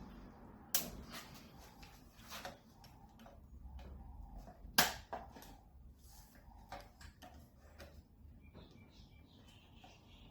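Irregular light clicks and taps of a tool working on pool pump parts, prying at a stuck mechanical seal, with two sharper knocks: one about a second in and a louder one a little before the middle.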